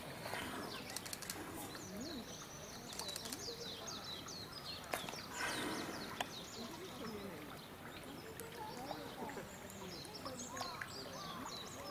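Small birds chirping in many quick, falling chirps over distant voices. There is a brief rushing noise about five seconds in.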